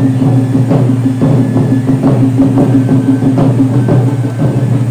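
Taiko drums struck in a steady rhythm, about two to three strikes a second, over the continuous rushing roar of a tezutsu hanabi, a bamboo tube firework spraying a fountain of sparks.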